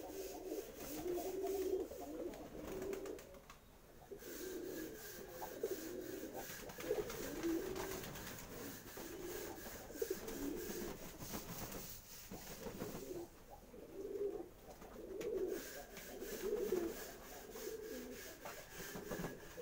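Several domestic pigeons cooing in their loft: low, warbling coos overlapping one after another with short gaps.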